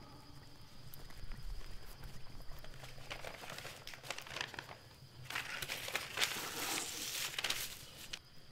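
Paper rustling and crinkling as a folded sheet is handled, in two stretches, the second longer and louder.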